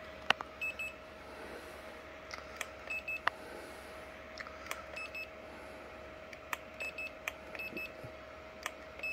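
Handheld infrared thermometer beeping as it takes temperature readings: short high beeps about every two seconds, with a few light clicks between them, over a faint steady tone.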